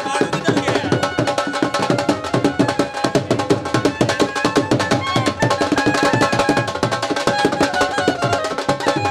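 Drums beaten in a fast, steady rhythm, with a melody of held notes playing over them.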